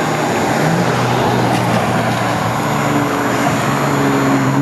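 BMW M235i's turbocharged 3.0-litre inline-six running with its exhaust open from the downpipe back (no mufflers), accelerating up the road toward and past: a loud, raw exhaust note whose pitch climbs in steps and grows louder as the car nears.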